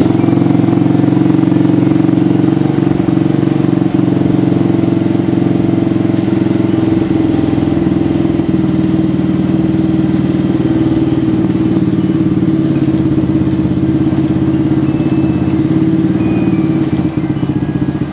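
Honda Supra X motorcycle's four-stroke single-cylinder engine running steadily just after starting. It is on its first run after a rebuild with a new piston, connecting rod and crankshaft bearing.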